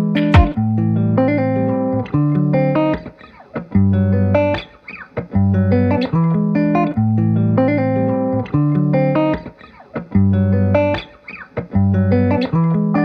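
Background music: plucked guitar with bass, in short phrases with brief pauses between them, ending abruptly just after the end.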